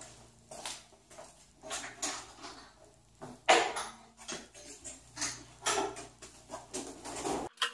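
Wooden flip-top tool stand carrying a Delta portable planer being turned over by hand: an irregular run of clunks and rattles, the loudest about three and a half seconds in.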